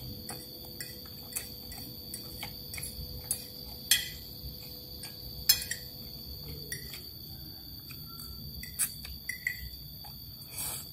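A metal fork scraping and clinking against a ceramic plate while noodles are eaten, with a few sharp clinks standing out about four and five and a half seconds in. Behind it runs a steady high trilling of crickets.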